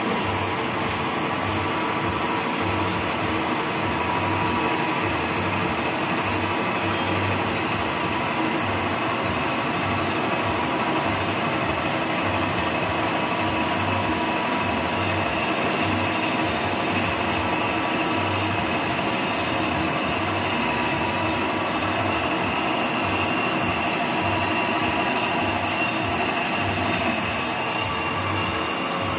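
Automatic drilling machine running steadily, its twist drill boring into the rim of a metal motor body, a continuous machine hum with a few held tones throughout.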